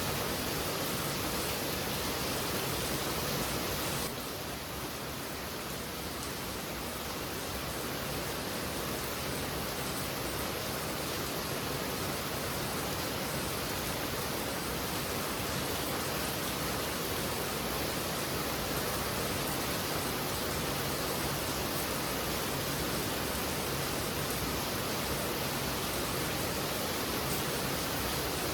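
Heavy rain falling steadily, a dense even hiss. About four seconds in the level dips briefly, then builds back.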